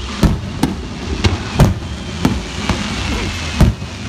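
Fireworks shells bursting: a string of about seven sharp booms in four seconds, unevenly spaced, over a continuous low rumble.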